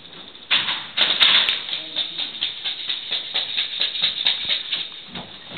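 Airsoft guns firing: a rapid run of sharp clacks, about four or five a second, starting about half a second in.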